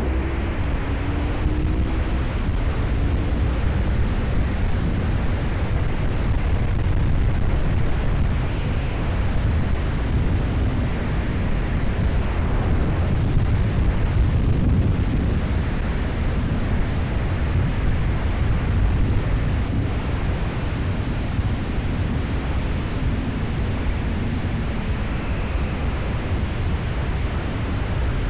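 Heavy wind buffeting on the action camera's internal microphone while riding a 1997 Honda VFR750F motorcycle at speed. The bike's V4 engine comes through faintly under the wind, its pitch rising and falling now and then with the throttle.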